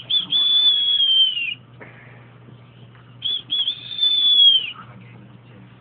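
A dog whining twice in high, thin tones: each whine starts with a couple of short notes, then holds one long note that dips at the end.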